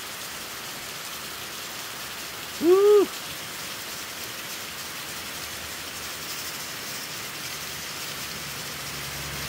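Heavy rain pouring steadily, a sudden summer downpour drumming on flagstones, roofs and foliage. About three seconds in comes a brief voiced exclamation, a short rising-and-falling 'ah'-like sound from a man.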